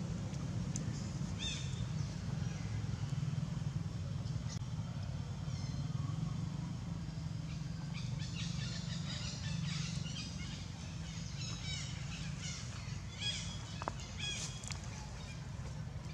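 Small birds chirping in quick, short high calls, thicker in the second half, over a steady low rumble of outdoor background noise.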